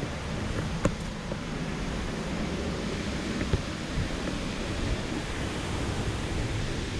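Steady rushing of the Bomburu Ella waterfall, a dense even roar of falling water. A brief click about a second in.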